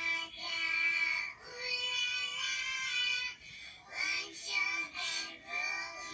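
A song with a high singing voice playing: the TikTok sound being used for the recreation.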